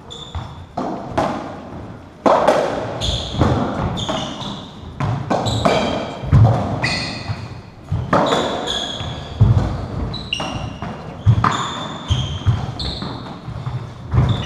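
Racketball rally: the ball struck by the rackets and hitting the walls and floor in a string of sharp knocks that ring around the court, with trainers squeaking on the wooden floor between the shots.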